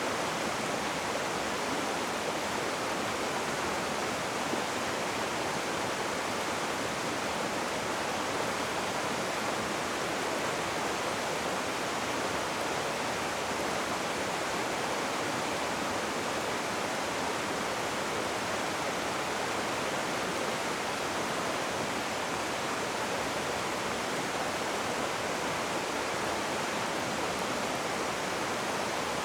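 Rushing river water: a steady, even rush with no breaks.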